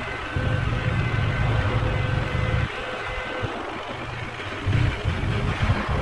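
Husqvarna Svartpilen 401's single-cylinder engine through its stock exhaust, ridden at low speed in slow traffic. It runs under light throttle, eases off a little before halfway, then picks up again in short throttle pulses near the end.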